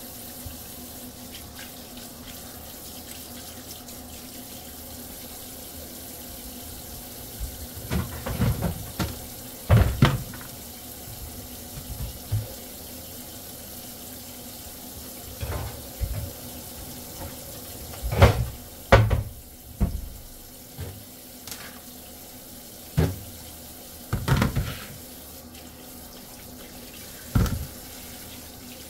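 Kitchen tap running steadily into a stainless steel sink full of freshly caught fish. From about a quarter of the way in come irregular knocks and thumps, some in quick clusters, as the fish are handled and moved into a plastic colander in the sink.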